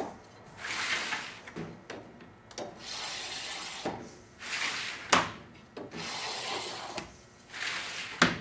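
A scribe dragged along sheet metal, scratching out marking lines in about five strokes of roughly a second each, with a few sharp clicks of the tool against the metal between strokes.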